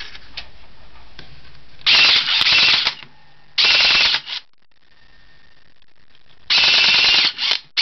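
Cheap electric airsoft pistol, built for 4.8 V, run on a 12 V cordless drill battery: its motor and gearbox buzz through three short full-auto bursts of about a second each, the first around two seconds in, with short blips after the second and third.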